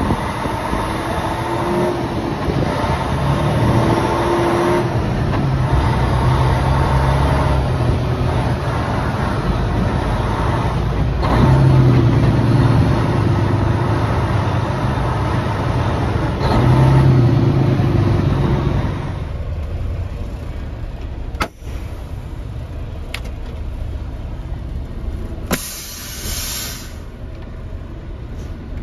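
Dump truck's diesel engine running heard from inside the cab as it drives slowly through a yard, swelling twice under harder pulls, then dropping to a quieter idle about two-thirds through. Near the end come a sharp click and a short burst of air hiss, typical of the truck's air brakes being set.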